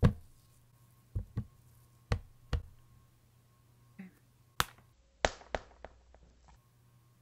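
Jell-O Play edible slime squeezed and worked in the hands, giving an irregular series of sharp wet pops and clicks, the loudest right at the start.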